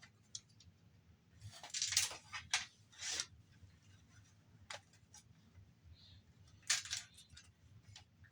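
Hands and tools prying and scraping at the parts of a Blu-ray player being torn down, with scattered clicks and a few louder scraping bursts about two and three seconds in and again near seven seconds. The part is resisting, stronger than brittle plastic that would shatter.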